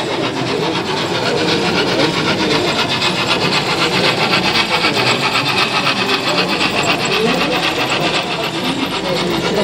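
Model freight train hauled by a model steam locomotive running across the layout: a rapid, even, rasping clatter that swells a little as the train passes, over a murmur of voices.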